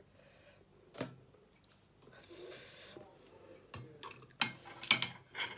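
Clam shells clacking against a ceramic plate and spoon as cooked clams are picked up and pried open by hand: one sharp click about a second in, then a quick cluster of louder clacks near the end.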